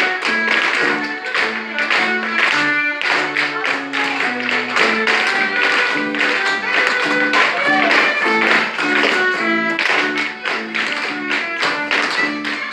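Instrumental music playing, with the taps of a group of Appalachian clog dancers' shoes striking a hard floor.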